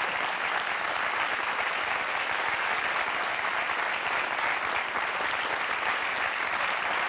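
Large studio audience applauding, steady clapping at an even level.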